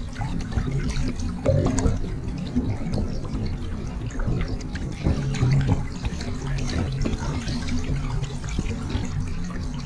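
Choppy lake water splashing and lapping close to the microphone in small, uneven surges, with a steady low hum underneath.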